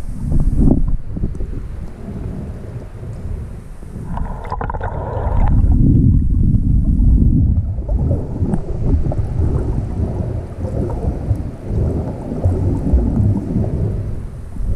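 Heavy, irregular low rumbling buffeting on an action camera's microphone during a sea swim, with a brief muffled higher sound about four to five seconds in.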